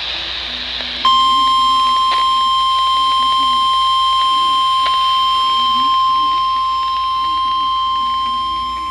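NOAA Weather Radio 1050 Hz warning alarm tone: a single steady, unwavering beep that starts about a second in after a moment of radio hiss, with a couple of faint static crackles over it. It is the attention signal that comes before a new warning is read.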